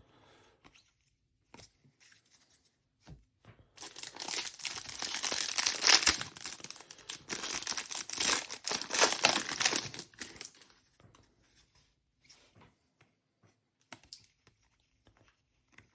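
Plastic wrapper of a trading card pack crinkling and tearing as it is pulled open and handled, a dense crackle lasting about six seconds from about four seconds in, with faint clicks of handling before and after.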